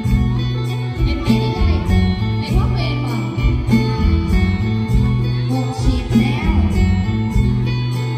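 Live Isan mor lam band music played through a PA system: an electric guitar plays a melody over held bass notes and a steady drum beat.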